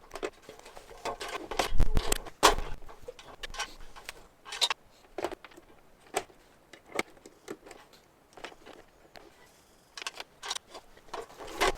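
Irregular clicks, knocks and light rattles, with a couple of heavier thumps about two seconds in.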